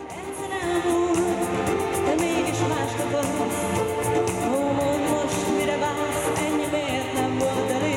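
A woman singing a pop dance song into a microphone over electronic keyboard accompaniment with a steady beat, played live by a singer-and-keyboard duo. The music swells to full level within the first second.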